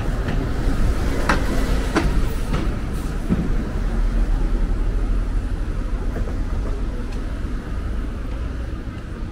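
Steady low rumble of a vehicle passing close by, with a few sharp clicks about one to three seconds in, easing off slowly after that.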